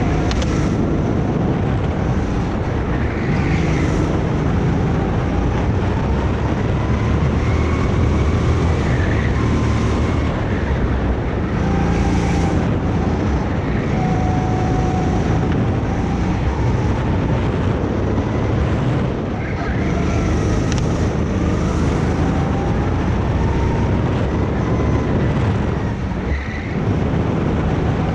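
Go-kart engine running on track, its pitch rising and falling over and over as it accelerates and backs off through the laps.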